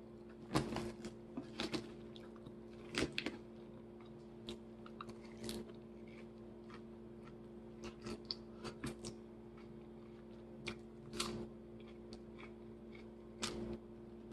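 A person with dentures chewing and crunching a salad with pieces of apple, in irregular crisp bites and chews, over a steady low hum.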